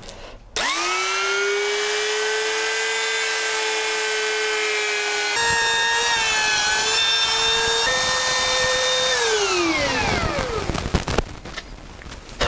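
Handheld electric wood router starting up and rising quickly to a steady high whine, its pitch shifting and wavering in the middle as it cuts a recess in pine, then switched off and winding down with a falling whine near the end.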